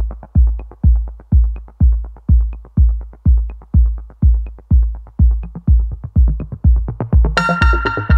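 Background electronic dance music: a heavy kick drum about twice a second with light ticking hi-hats between, and a bright synth part that comes in about seven seconds in.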